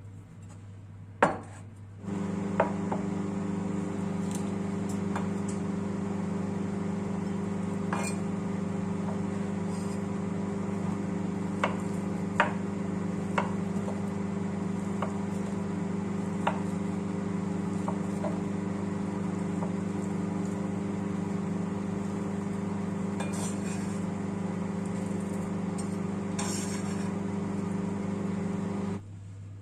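Microwave oven running with a steady low hum that starts abruptly about two seconds in, after a click, and cuts off just as abruptly near the end, with scattered light ticks over it.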